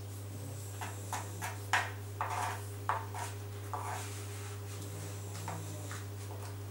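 Kitchen knife cutting and scraping roasted red peppers on a wooden cutting board: a run of short taps and scrapes, mostly in the first half, over a steady low hum.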